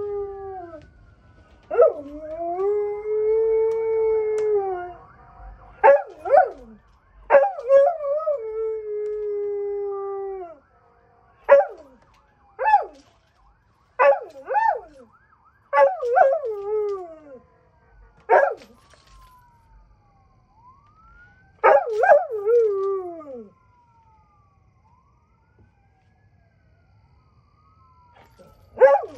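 A dog howling: long drawn-out howls at first, then a string of short yips and yelping howls, falling silent about three-quarters of the way through before one last yip at the very end. A faint siren wails up and down behind it.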